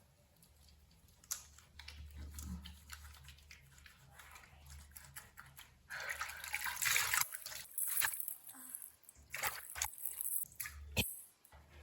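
Face being rinsed with water at a sink: water splashing and dripping, with a louder stretch of splashing about six seconds in.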